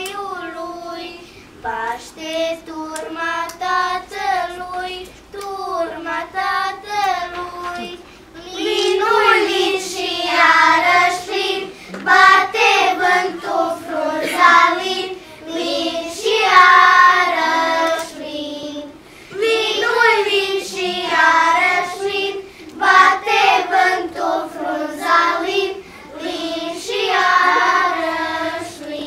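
A group of children singing together as a choir; the singing grows fuller and louder about eight seconds in.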